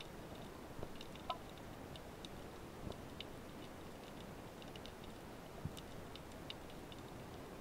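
Faint underwater ambience recorded by a submerged camera: a steady hiss with scattered, irregular small clicks and ticks, one a little louder about a second in.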